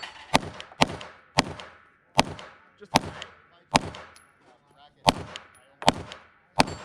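A string of about nine gunshots fired at targets, roughly one every half to three-quarters of a second, with a longer pause of over a second after the sixth shot.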